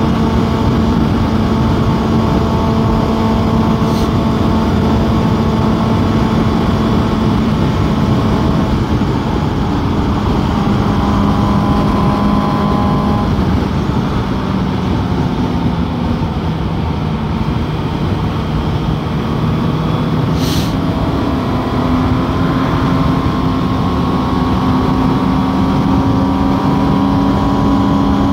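Inline-four sport motorcycle engine running at road speed under heavy wind rush. The engine note sags a little through the middle and climbs again near the end, with two brief clicks along the way.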